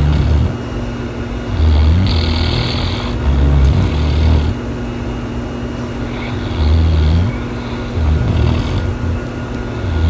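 A sleeping dog snoring: a low snore on each breath, coming in runs every second or so, with a pause of a couple of seconds in the middle.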